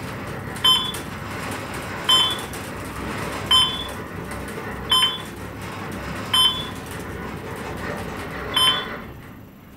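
Schindler elevator car travelling down, with a short electronic beep six times, about one every second and a half, once for each floor passed, over the steady running noise of the ride. The running noise fades near the end as the car slows for its stop.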